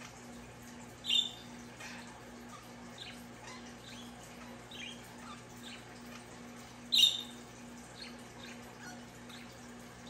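Budgerigars chirping: two loud, short, high calls, about a second in and again near seven seconds, among fainter scattered chirps. Under them is the faint steady rush of a stream playing from a TV.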